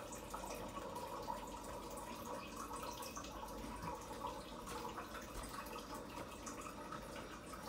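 Faint, steady running water, like a tap filling a container.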